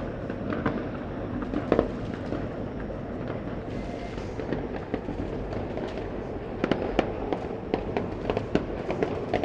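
Many fireworks and firecrackers going off across the city: a constant rumble of distant bangs and crackle, with a sharper bang about two seconds in and a dense run of louder pops in the last third.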